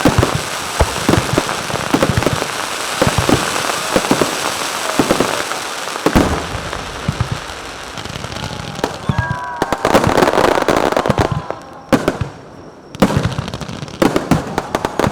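Aerial firework shells bursting one after another, loud sharp bangs with crackling between them, and a brief lull about twelve seconds in.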